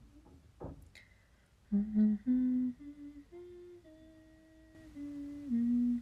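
A woman humming a short tune with her lips closed: about eight held notes that step upward and then fall back down, starting nearly two seconds in.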